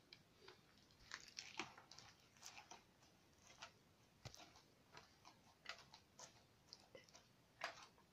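Homemade fluffy slime of glue and shaving foam being kneaded and pressed against a board by hand: faint, irregular sticky clicks and pops as it pulls away, the slime still tacky.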